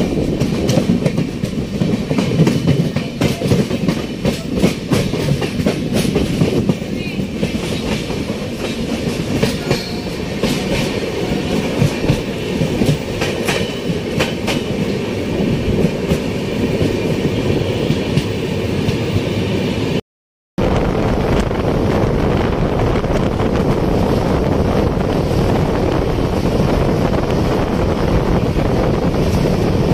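Passenger train running at speed, heard from an open coach door: wheel-on-rail noise with frequent clicks and clatter, under a rush of wind. After a sudden cut about two-thirds of the way through, the sound is a steadier rush with fewer clicks.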